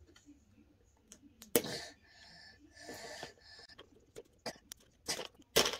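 Small plastic toys and packaging being handled: scattered clicks and taps, a sharper knock about one and a half seconds in, a breathy rustle in the middle, and louder clicks near the end.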